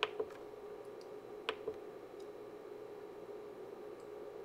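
Front-panel push-buttons of a Rigol DS1104Z-S Plus oscilloscope clicking as they are pressed and released: short sharp clicks in pairs, at the start, about a second and a half in, and at the end, over a faint steady hum.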